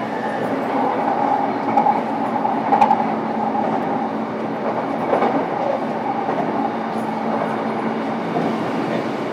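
Running noise of an E233-7000 series electric train heard inside its motor car: a steady rumble of wheels on rail, with a couple of sharper knocks about two and three seconds in.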